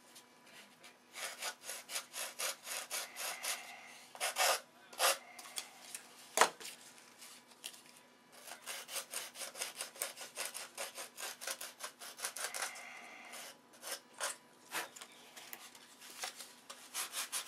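320-grit sandpaper rubbing on a small wooden hinge, sanded by hand to smooth it. It comes in runs of quick back-and-forth strokes with short pauses between them, and one sharp tap about six seconds in.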